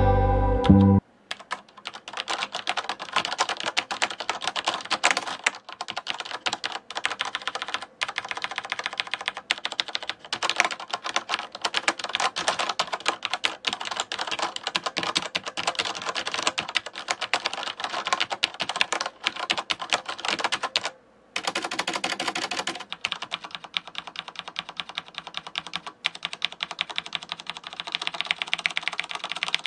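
Fast typing on a Corsair Strafe mechanical keyboard with Cherry MX Red linear switches: a dense, quick run of key clacks with a few short pauses. A strummed guitar piece cuts off about a second in.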